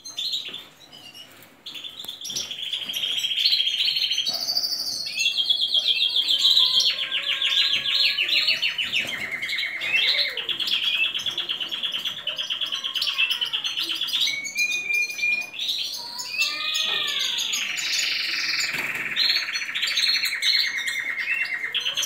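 Canaries singing: long, rapid rolling trills of repeated notes, one phrase after another with hardly a pause, with a few sliding whistled notes in between. The song starts after a quiet second or two.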